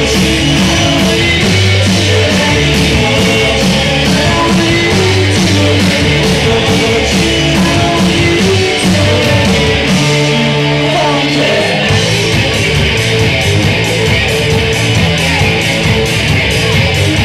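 A rock band playing live, with electric guitars to the fore over a steady drum beat.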